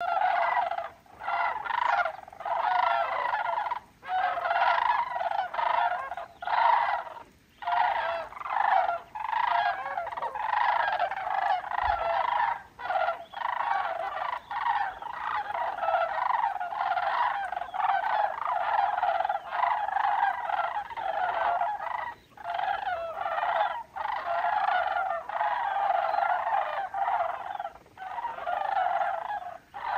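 A large flock of migrating sandhill cranes calling in flight overhead. Many overlapping calls form a dense, unbroken chorus that dips briefly every few seconds.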